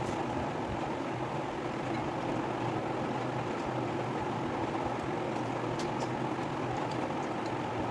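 Steady background hum with a few faint clicks in the second half.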